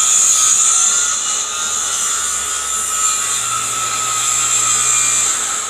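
Handheld circular saw running and ripping lengthwise through a phenolic-faced plywood board: a loud, steady high whine that dies away near the end as the cut finishes.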